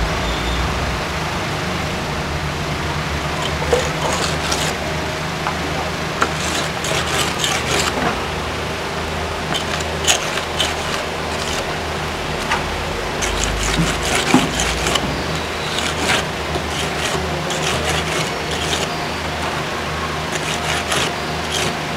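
Steady background hum and hiss, with scattered short scrapes and clicks from hands and tools working on a cement stove body.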